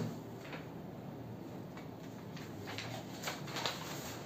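Faint rustling of paper sheets being handled, with a few soft ticks, over quiet room hum.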